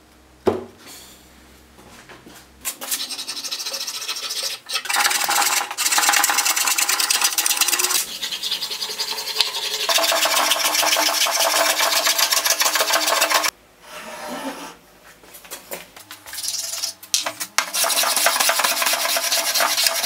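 Metal hand plane shaving a block of lime wood, in runs of scraping strokes a few seconds long with short breaks between them. A single knock comes about half a second in.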